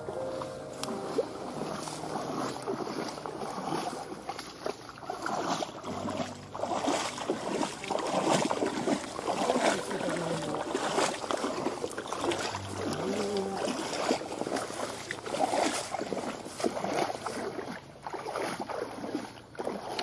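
Water splashing and sloshing in irregular strokes as a hand dip net is worked through a ditch's muddy, sandy bottom.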